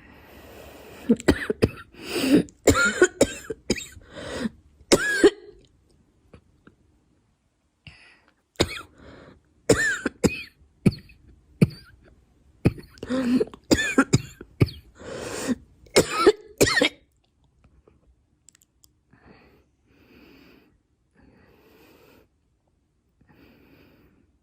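A girl coughing in two fits of quick successive coughs, the first from about a second in to about five seconds, the second from about nine to seventeen seconds, followed by faint breaths.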